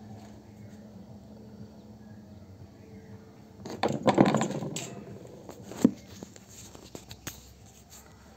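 Handling noise from a badminton racket being laid down on a tiled surface: a burst of clattering knocks about four seconds in, a single sharp knock about two seconds later, then a few light taps.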